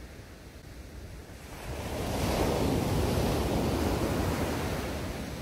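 Surf breaking on a shingle beach: the rush of a wave swells about a second and a half in, then slowly dies away.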